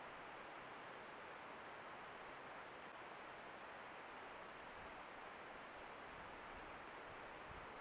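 Faint, steady rush of a creek's flowing water.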